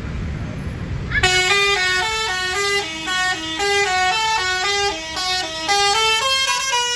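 Bus basuri musical air horn playing a quick tune, stepping between notes about three times a second from about a second in, then holding a note near the end. A low rumble fills the first second before the horn starts.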